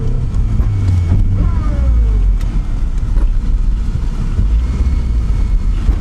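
Lada Niva's engine and drivetrain running steadily under load as it drives through snow, heard from inside the cabin as a low rumble.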